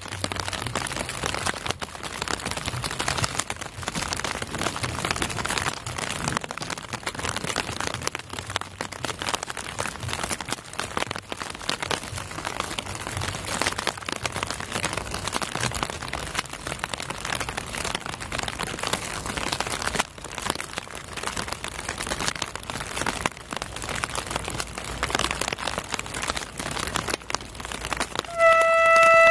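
Rain falling, a dense crackling hiss of drops close by. About a second before the end, the horn of a D301 diesel locomotive starts sounding one loud steady note.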